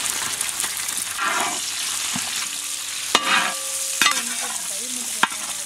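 Onions, curry leaves and green chillies frying in hot oil in a large wide pan: a steady sizzle while they are stirred, with three sharp knocks of the spatula against the pan about three, four and five seconds in.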